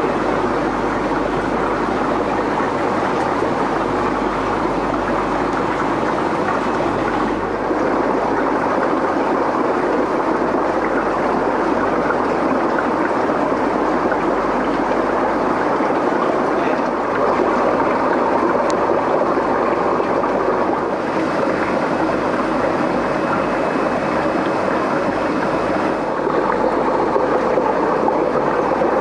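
Steady rushing and bubbling of water from aquarium filters and air pumps running in many tanks. The noise shifts slightly in tone a few times as the shots change.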